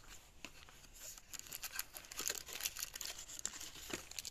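Packaging crinkling and rustling as a new replacement thermostat is unwrapped by hand: many small irregular crackles.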